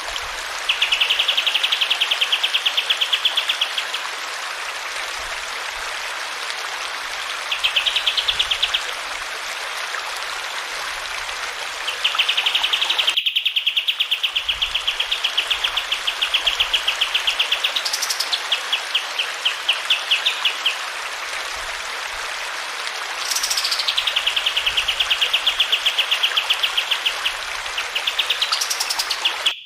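Kapas tembak songbird singing fast rattling trills in phrases of one to six seconds, some opening with a sharp rising note, over a steady hiss of running water.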